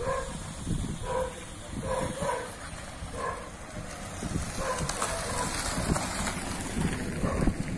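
Dog barking in short single and paired barks, roughly one a second.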